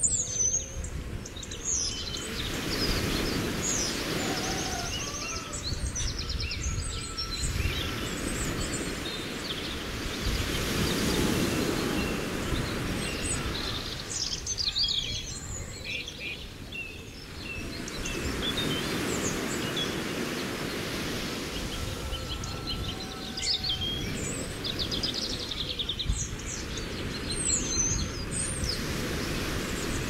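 Several birds chirping and singing in short trills and calls throughout, over a low wash of lake water that swells and fades every several seconds.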